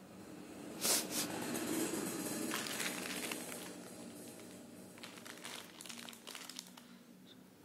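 Plastic wrapper of an Indomie instant noodle packet crinkling as it is picked up and handled. The crinkling starts about a second in and is densest for a couple of seconds, then thins to scattered crackles.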